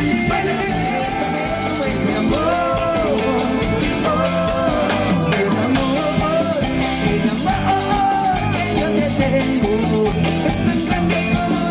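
Latin dance music with a steady beat and a sung melody.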